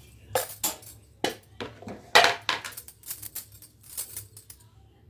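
Kitchen utensils knocking and clinking against a bowl, about ten sharp strikes at an uneven pace, the loudest a little over two seconds in.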